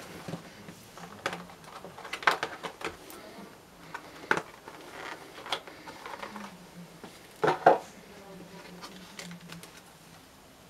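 Packaging being handled: a clear plastic sleeve and foam tray sliding out of a cardboard model box, with scattered crinkles, taps and knocks. A louder double knock comes a little past the middle.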